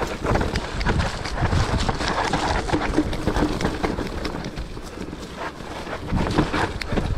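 Mountain bike riding on a wet, muddy trail: wind buffeting the microphone over the tyres on mud and rapid rattling and knocks from the bike over rough ground.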